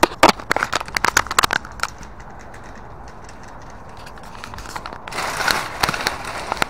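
Handling noise from a small body-worn camera: a quick run of sharp crackles and clicks in the first two seconds as fingers rub and tap on it. About five seconds in, a louder, busier stretch of noise with a few more clicks begins.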